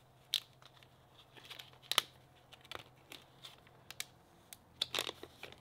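A small clear plastic parts bag crinkling and crackling as it is handled, with a few sharp clicks, while a spare screw is put away in it.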